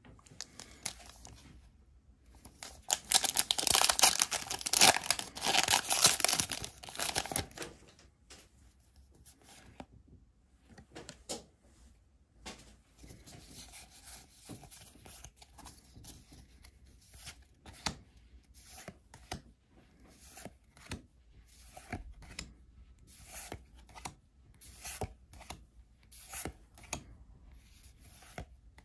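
A Pokémon trading card booster pack's foil wrapper is torn open with a loud crinkly tearing that lasts several seconds, a few seconds in. Quieter sliding and flicking of the trading cards follows, as they are moved from the back of the stack to the front one at a time.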